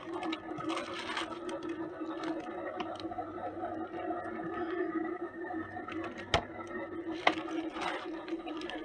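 A small electric toy motor running with a steady hum, with scraping about a second in and near the end, and two sharp clicks about six and seven seconds in.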